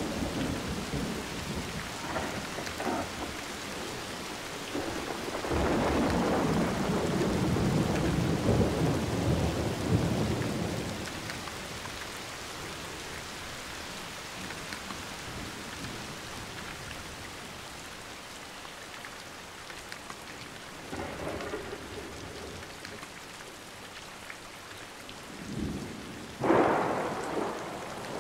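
Thunderstorm with steady rain falling throughout. A long low rumble of thunder rolls for several seconds early on, a fainter rumble follows later, and a sudden, louder thunderclap cracks near the end and fades.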